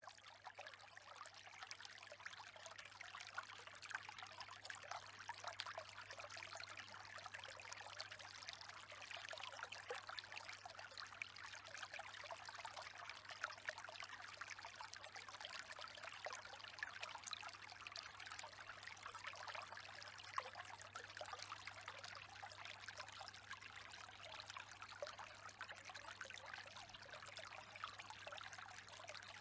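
Faint steady trickle of running water, full of fine crackle, over a low steady hum.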